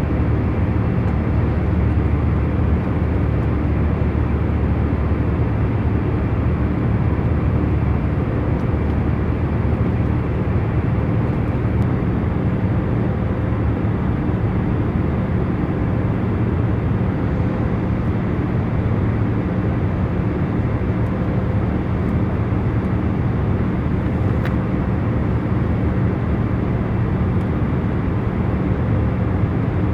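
Steady hum of a jet airliner's cabin in cruise: even, low-heavy engine and airflow noise with a faint constant drone.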